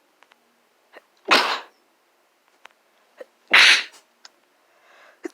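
A person sneezing twice, about two seconds apart; each sneeze is a short, sharp burst. A soft drawn-in breath follows near the end.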